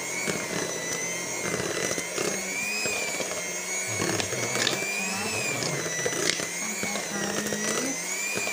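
Electric hand mixer running with its beaters in thick choux pastry dough in a stainless steel bowl. The motor's whine rises and falls in pitch about every two seconds, with a few short clicks.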